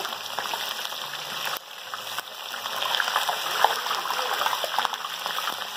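Bass pieces deep-frying in hot oil in a disco pan: a steady sizzle with scattered crackles of bubbling oil.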